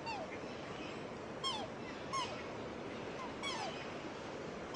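Brook water rushing steadily, with about five short whistled bird calls, each falling in pitch, coming irregularly about once a second.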